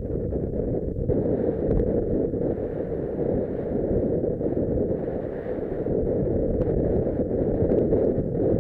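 Wind rushing over the microphone of a camera on a moving motorcycle, with the motorcycle running under it as a steady, even rumble.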